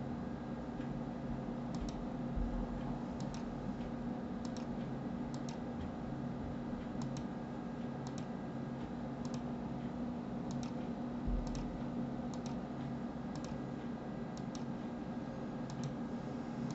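Computer mouse left button clicking about a dozen times at irregular intervals, each click a sharp press-and-release pair, over a steady low background hum.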